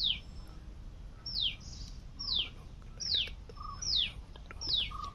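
A bird calling over and over: a short, high whistled note that falls steeply in pitch, repeated about once a second.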